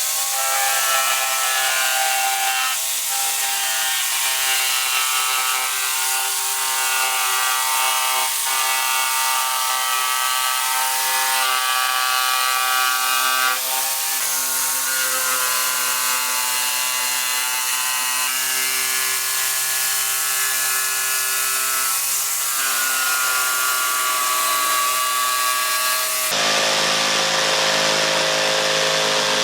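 Electric woodworking power tool running and working wood: a steady motor whine over a cutting or sanding hiss, with the pitch shifting several times as the load changes. The sound changes character, getting lower-pitched, about 26 seconds in.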